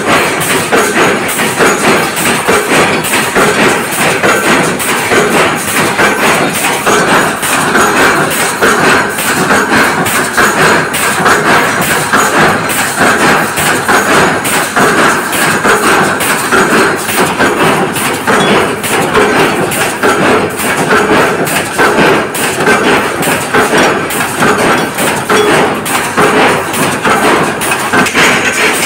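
Continuous dense metallic clatter and banging of a sheet-metal press shop at work, with rapid knocks running together without a pause.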